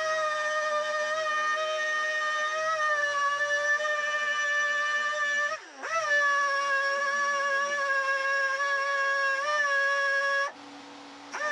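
Dual-action sander with 120-grit paper running on a plastic scooter panel, a steady high-pitched whine. About halfway through the pitch sags sharply for a moment and recovers, and near the end the whine cuts out for under a second, then rises back up.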